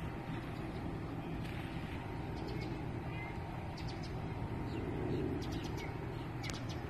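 Outdoor ambience: a steady low hum and rumble with a few brief, faint bird chirps.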